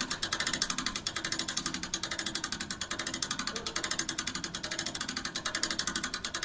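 Ratchet pawl of a hand-cranked truck-bed winch clicking fast and evenly as the cable is wound in, drawing an ATV up the loading ramp.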